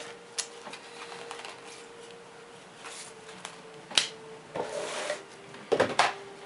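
Cardboard board-game components being handled in and lifted out of their box: light rustling and sliding of card, a sharp tap about four seconds in, and a quick flurry of knocks near the end as a board is set down on the table.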